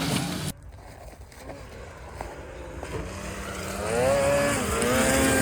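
Two-stroke snowmobile engine revving hard, cut off abruptly about half a second in. After a quieter stretch, an engine's revs rise again and hold high near the end as a sled climbs.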